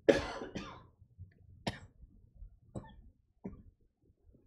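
A person coughs twice, then three or four sharp, short clicks follow over the next few seconds.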